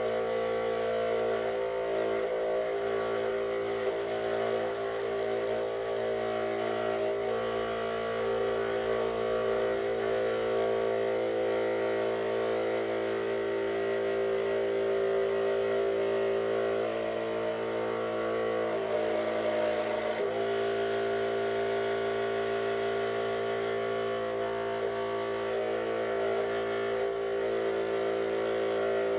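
Benchtop scroll saw running steadily while cutting 5 mm plywood, its motor and blade giving a constant hum that wavers briefly about two-thirds of the way through.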